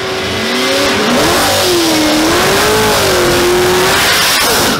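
A car engine revving hard under a loud rush of noise, its pitch swinging up and down. It builds up over the first second, holds, and cuts off suddenly at the end.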